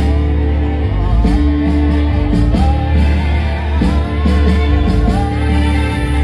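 Loud live pop-rock band music through a concert PA, with a heavy steady bass and a wavering melodic line over it between sung verses.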